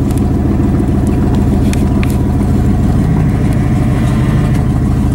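A vehicle engine running steadily, with a constant low hum and no change in pitch.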